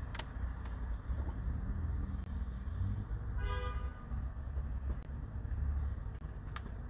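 A steady low rumble of background noise, with one short pitched tone about halfway through and a few faint clicks.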